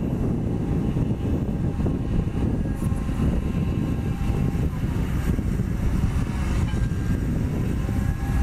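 Kobelco 7055 crawler crane's diesel engine running with a steady low rumble as the crane slews, with faint steady whining tones above it.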